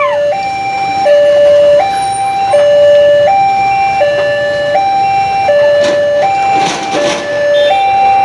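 Electronic warning alarm of an Indonesian railway level crossing, repeating a steady two-note high–low tone, each note held about three quarters of a second. It signals that a train is approaching and the barrier is down.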